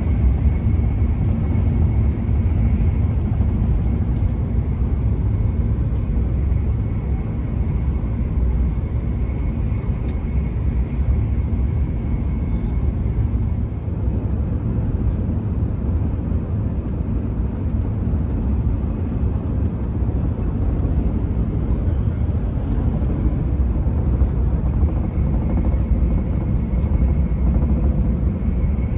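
Steady low rumble of a Shinkansen bullet train running at speed, heard inside the passenger cabin, with a faint high whine that fades out partway through and returns near the end.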